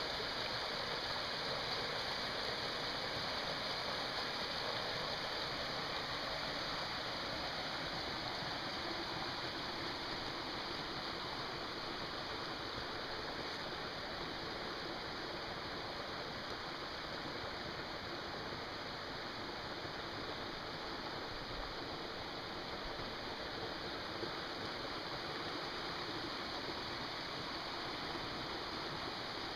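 A small creek running steadily over rocks.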